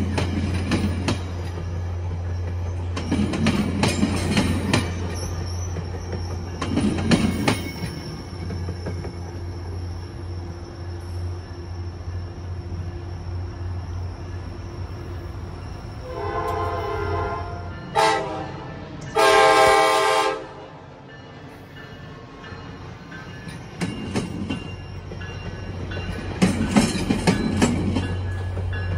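Diesel train running with a steady low engine rumble while its wheels clack in bursts over the rail joints. A little past halfway the multi-tone horn sounds in two blasts, the second louder. Soon after, the rumble fades.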